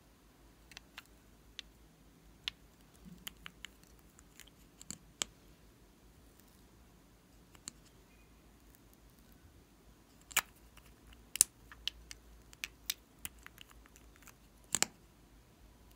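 Sharp plastic clicks and taps from lip-gloss and lipstick tubes being handled and uncapped, scattered and light at first, with a louder run of clicks in the second half.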